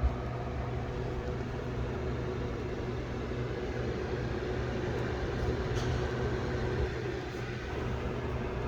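A 1961 Hewlett-Packard 150A vacuum-tube oscilloscope running, its cooling fan giving a steady hum, with one short click as it begins.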